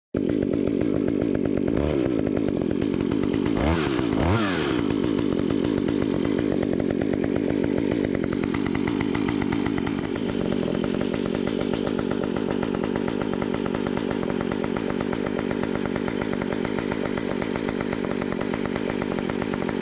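Two-stroke engine of a STIHL MS 194 T top-handle chainsaw running just after starting, blipped up and back about two seconds in and twice around four seconds, then running steadily, a little quieter from about ten seconds on.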